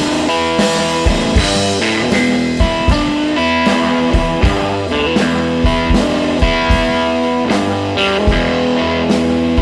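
Instrumental stretch of a blues-rock song: electric guitar over a steady drum beat.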